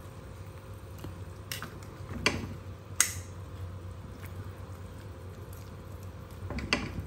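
Metal tongs turning boiled chicken in a pot of broth: wet squishing and sloshing, with a few sharp clinks of the tongs against the metal pot, the loudest about two and three seconds in. A steady low hum runs underneath.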